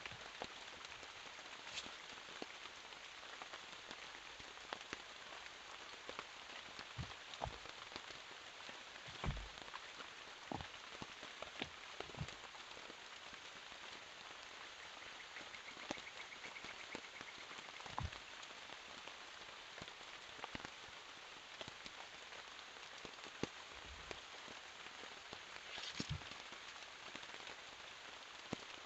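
Steady rain falling in a forest, a soft even hiss with scattered heavier drops tapping close by every second or two.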